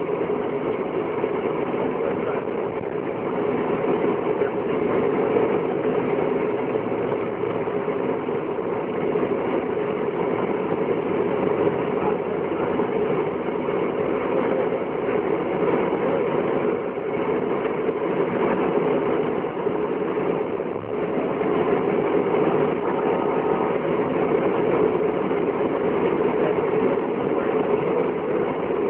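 Steady engine and road noise of a military convoy vehicle driving, heard from inside the cab: a constant low drone with no change in pace.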